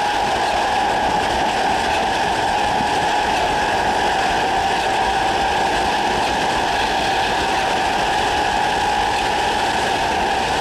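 GEC G315BZ traction motors of a British Rail Class 317 electric multiple unit whining at a steady pitch at speed, over the rumble of wheels on track, heard from inside the carriage.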